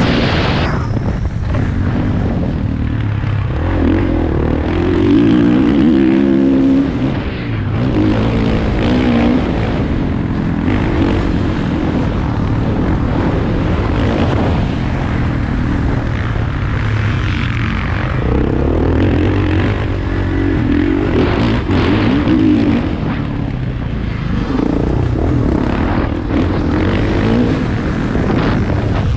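Motocross bike engine running hard under a rider, its revs rising and falling repeatedly through acceleration and shifts, with a rushing noise over it.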